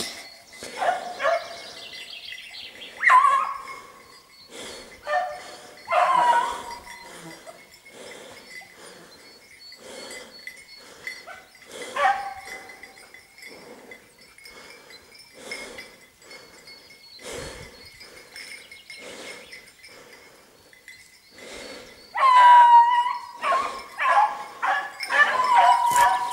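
Beagle baying on a hare's trail: single drawn-out bays several seconds apart, then a quick run of bays near the end. Many short clicks and crackles run underneath.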